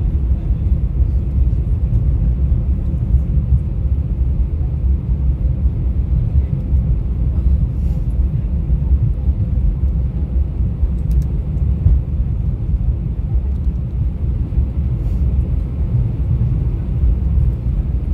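Steady low rumble inside the cabin of an Airbus A319-112 taxiing after landing: its CFM56 engines at idle and the wheels rolling over the taxiway. A few faint ticks come through about halfway in.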